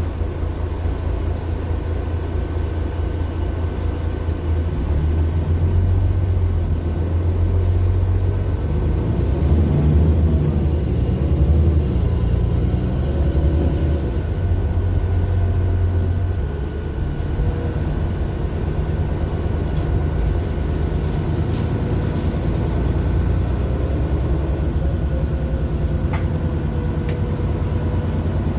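Mercedes-Benz Citaro LE city bus running, its Daimler OM 457 hLA six-cylinder diesel heard from inside the bus. The engine grows louder under acceleration from about five seconds in, then settles back to a steady drone after about sixteen seconds, with a faint steady whine throughout.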